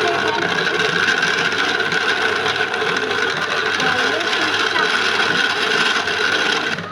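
Small electric motor driving a homemade cigarette-rolling machine, running steadily with a high whine over a busy rattle of the rolling mechanism.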